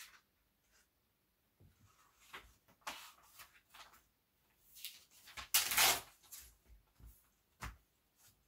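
Paper being handled and rustled in scattered bursts, with a longer, louder rustle about six seconds in and a short knock near the end.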